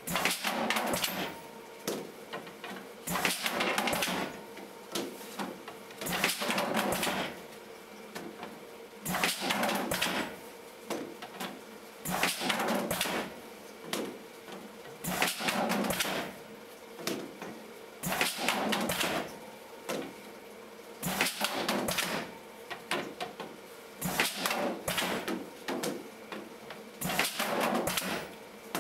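PLUG 1800 stretcher-bar frame-assembling machine cycling automatically: a burst of pneumatic clacks and hiss about every three seconds as it presses four wooden stretcher bars into a frame, over a steady hum.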